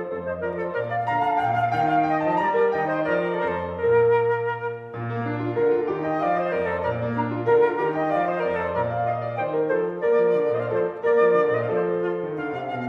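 Instrumental background music: a melody over held bass notes that change about every second.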